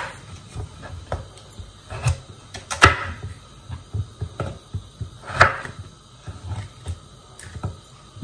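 Kitchen knife cutting peeled potatoes into wedges on a wooden cutting board: irregular knocks of the blade against the board, with a few louder ones.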